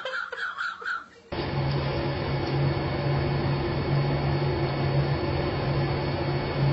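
A steady mechanical whir with a low hum and hiss, unchanging after it cuts in about a second in. Before it there is a brief run of short high-pitched calls.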